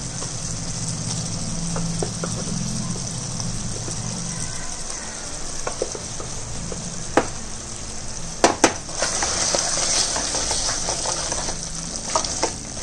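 Chicken and masala sizzling in oil in an aluminium pressure-cooker pot, a steady hiss. A few sharp knocks of a wooden spatula against the pot come in the second half, as a coconut-onion paste is stirred in near the end.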